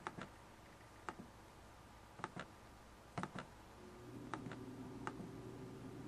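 Quiet clicking at a computer, single clicks and quick double clicks about a second apart, as results are copied into a spreadsheet. A faint steady hum comes in about four seconds in.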